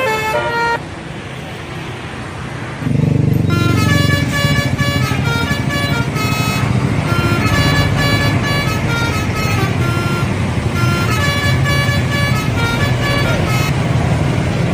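Bus 'telolet' musical air horn playing a quick tune of changing notes. It sounds briefly at the start, then again from about three and a half seconds in and on to the end. A bus engine is running loud and close from about three seconds in.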